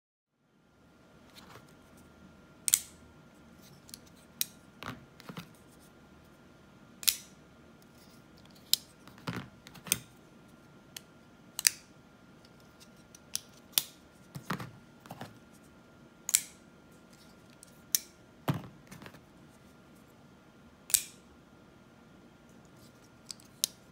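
Hinderer XM-18 3-inch Wharncliff folding knives on bearing pivots being flipped open and closed one after another, the blades snapping into place with sharp metallic clicks. The loudest snaps come about every four to five seconds, with softer clicks and knocks between.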